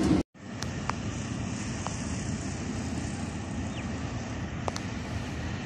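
Steady drone of twin RGE-24 diesel locomotives running as they approach, with a few faint chirps over it.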